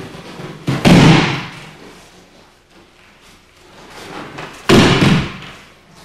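Two loud slaps of a thrown partner landing in breakfalls on the dojo mat, about four seconds apart, each ringing briefly in the hall.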